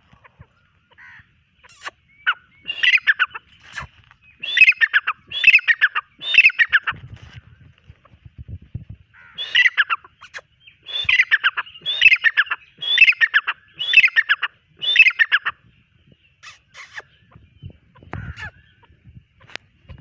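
Grey francolin calling: loud, harsh phrases of quick notes repeated about once a second, in two runs with a pause of a couple of seconds between them.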